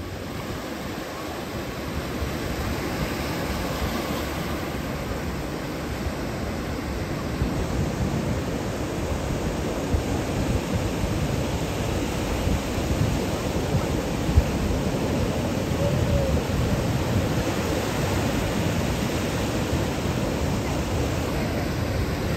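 Steady rushing of Gulf surf breaking and washing up on a sandy beach.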